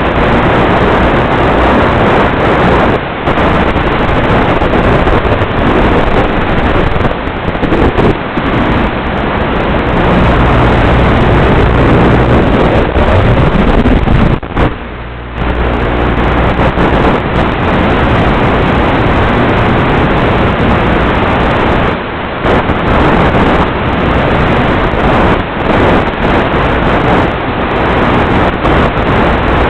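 Loud steady rushing noise from the small FPV wing's onboard audio in flight: wind over the airframe mixed with its electric motor. The sound drops out briefly several times, longest about halfway through.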